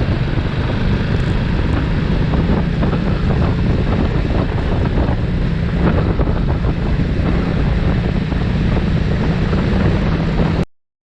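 Heavy wind noise buffeting a handlebar-mounted action-camera microphone on a motorcycle riding at highway speed: a loud, fluttering roar that cuts off suddenly near the end.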